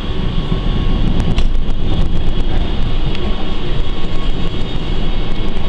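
Wengernalpbahn BDhe 4/8 electric rack-railway train heard from on board as it pulls slowly away: a steady low running rumble with a thin steady whine and a few sharp clicks.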